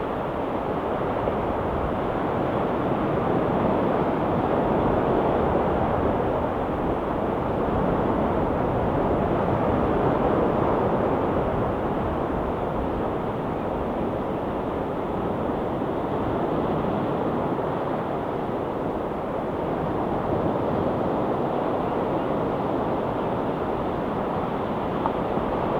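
Ocean surf washing steadily onto a rocky shore, a continuous rush of water that swells and eases slowly.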